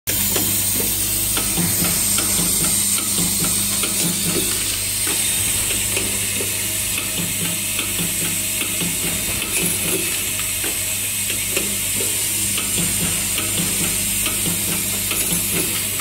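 Automated laser welding line for connectors running: a steady low hum from its vibratory bowl feeder under a constant hiss, with runs of quick repeated clicks from the machine's moving parts.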